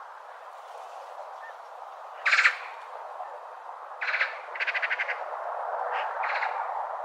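Several harsh, rattling corvid calls, each a quick run of even strokes, starting about two seconds in.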